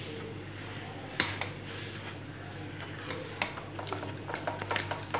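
Spatula stirring thick custard halwa in a stainless steel pot, knocking and scraping against the pot's side: one sharp knock about a second in, then a run of quicker knocks in the last two seconds, over a steady low hum. The mixture has cooked down very thick.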